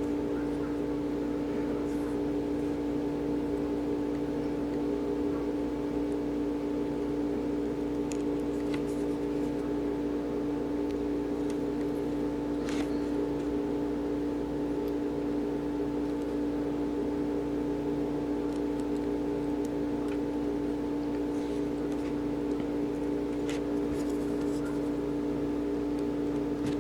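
A steady machine hum holding several fixed pitches at an even level, with a few faint clicks now and then.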